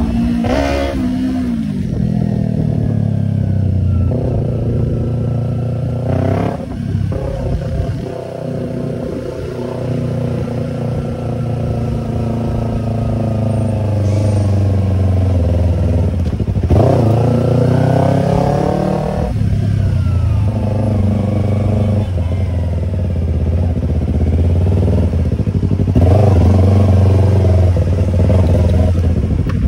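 Yamaha YZF-R25's parallel-twin engine through an aftermarket Tiger exhaust, riding along: the revs climb and drop a few times, with steady running in between.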